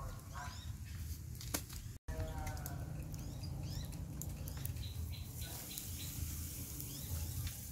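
Small birds chirping over a low steady rumble, with a single sharp click about one and a half seconds in.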